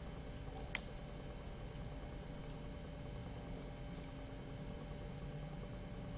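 Quiet outdoor ambience with a steady hiss, a single sharp click just under a second in, and four or five faint, short, high chirps that fall in pitch.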